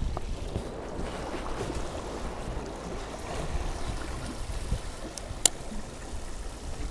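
Small waves lapping and washing against shoreline rocks, a steady hiss of moving water with a light wind rumble on the microphone. One sharp click about five and a half seconds in.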